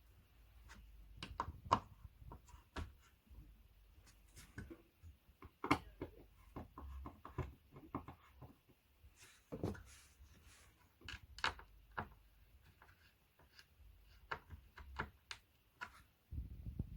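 Irregular light knocks and clicks of flat-pack furniture parts and fittings being handled and fitted together by hand, a few taps a second at times with gaps between.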